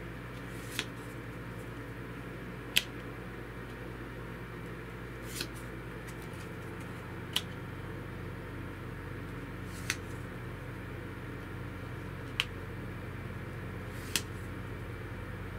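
Seven sharp clicks, about one every two to two and a half seconds, over a steady low hum.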